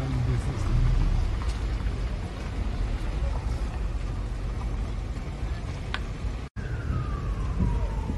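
Steady low rumble of engines, with a faint murmur of voices. About six and a half seconds in, the sound cuts out for an instant, and afterwards a single tone slides downward.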